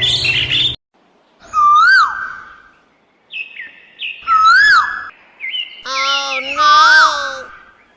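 Bird-like whistled calls: three loud whistles that rise and then fall, with short higher chirps between them. A longer, fuller-toned call comes in near the end.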